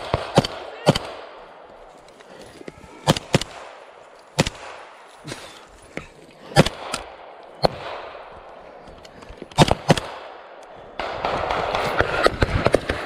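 Rifle shots from several soldiers' assault rifles, single shots and quick pairs at irregular intervals. Near the end a louder rustling noise of movement takes over, with shots still going.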